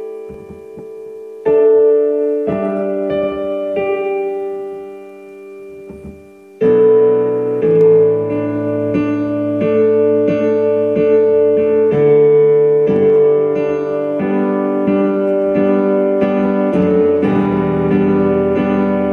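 Piano music, a slow intro of held chords. The first six or so seconds are thin and quieter, then it grows fuller with low bass notes added.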